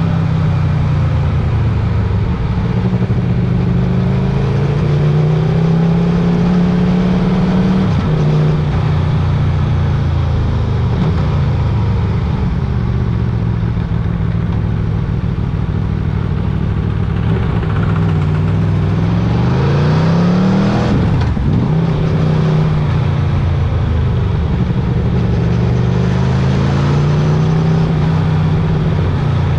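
Motorcycle engine running continuously under way, its pitch rising and falling gently with the throttle. About two-thirds of the way through the pitch dips sharply and climbs back.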